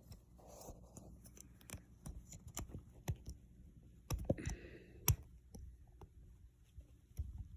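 Clicks and light taps of a small folding multi-tool being handled as a tool, the saw blade, is pried out and opened, with two louder clicks about four and five seconds in.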